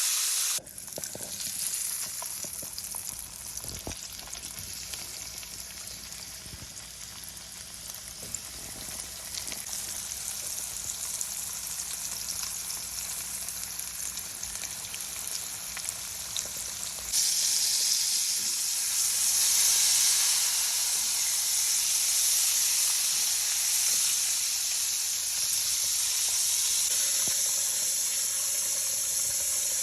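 Flour-dredged whole fish frying in hot oil: a steady sizzle with fine crackling that turns abruptly louder about 17 seconds in.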